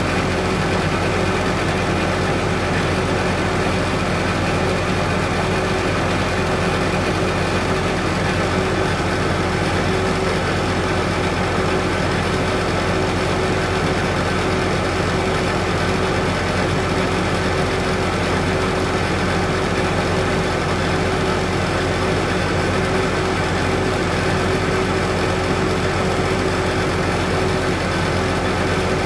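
A tractor engine idling steadily close by, a constant, even drone with a steady hum and no change in speed.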